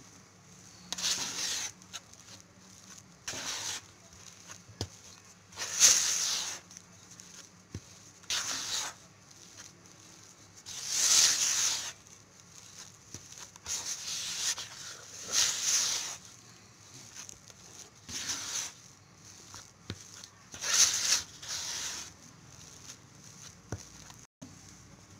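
A spatula scraping and folding soft butter cookie dough and flour in a bowl, in about ten separate strokes, each under a second long and a second or two apart.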